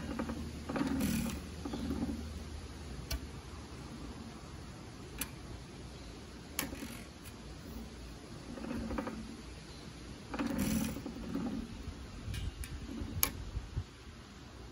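Scattered metallic clicks and short clatters from hands working on a stopped 1920 Hercules-built Economy stationary gas engine. They come at uneven intervals, with several sharp single clicks between them.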